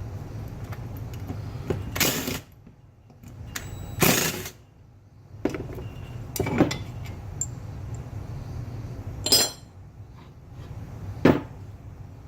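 Small power driver with a T40 Torx bit running in five short bursts, backing out the screws that hold the reservoir tank on a Subaru SVX power steering pump, over a steady low hum.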